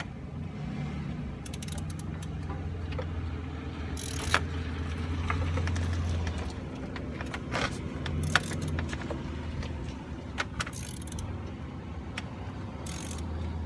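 Hand tools clicking and clinking on metal parts in a car's engine bay, with two sharper clinks about four and eight seconds in, over a low motor hum that swells and fades.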